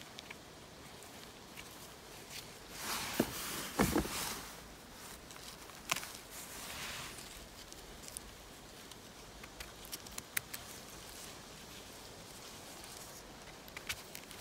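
Footsteps and rustling through wet forest undergrowth: scattered small snaps and clicks, with a louder bout of rustling about three to four seconds in and another around six seconds.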